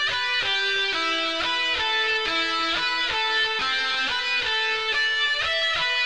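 Background music: a guitar playing a melody of single picked notes, changing two or three times a second.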